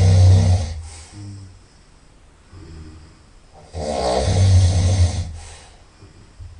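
A person snoring loudly through the nose: two long snores about four seconds apart, at the start and about four seconds in, with quieter breaths between them.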